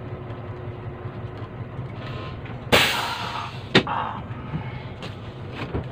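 Bus engine idling, heard from the driver's seat, with a sudden loud burst of noise about three seconds in that fades within half a second, then two sharp clicks.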